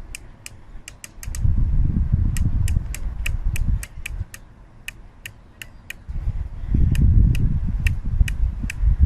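Elevation turret of a Fire Wolf 8-32x56E rifle scope being dialled during a box test, a steady run of sharp clicks about three to four a second, counting up some forty clicks. A low rumble comes and goes under the clicks twice.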